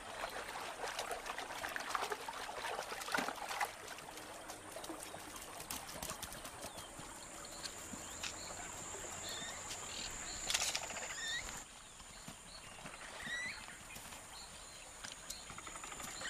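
Water splashing and trickling around a swimming capybara, then scattered short high chirps over quiet outdoor ambience. One sharp click about ten seconds in is the loudest moment.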